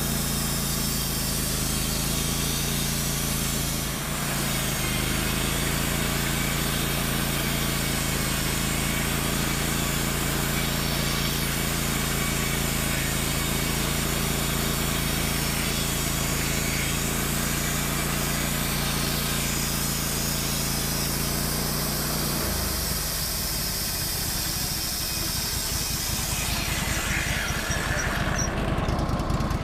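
Woodmizer LT15GO bandsaw mill running under its 25 hp Kohler engine, the band blade sawing through a pine log: a steady engine note under a hiss of cutting. About 22 seconds in the engine note drops and the sound turns rougher and less even.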